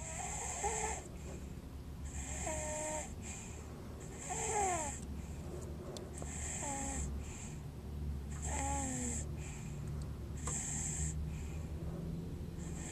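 A sleeping baby snoring: a raspy, breathy snore about every two seconds, several with a short sliding squeak.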